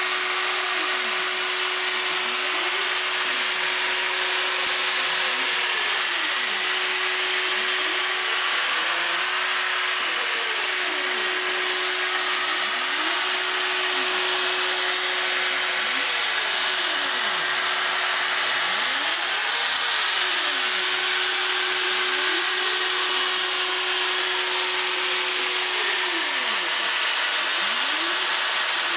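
CNC router running: a steady high hiss and a constant hum from the spindle, with a whine that repeatedly rises and falls in pitch every few seconds as the axes speed up and slow down between moves.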